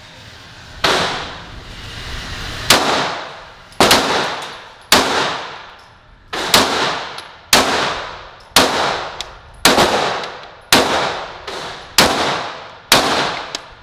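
A ported 9mm Glock 17 pistol with a 13-pound recoil spring fired about a dozen times at a steady pace of roughly one shot a second, each report trailing off in an echo.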